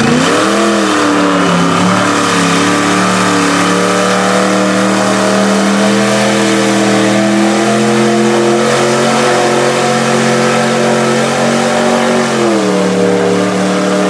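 Mud truck on tractor tires run wide open through a mud pit: the engine revs up at the start, is held at a steady high rpm, climbs a little more near the end, then the revs drop off.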